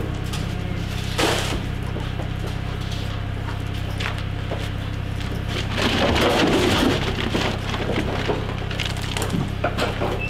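Goat feed being scooped out of a plastic barrel, a rustling, gritty rattle about six seconds in, over a steady low rumble.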